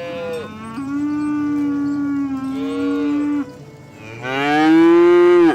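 Cattle mooing: a long, low moo with shorter, higher calls overlapping it, then a louder moo that cuts off suddenly near the end.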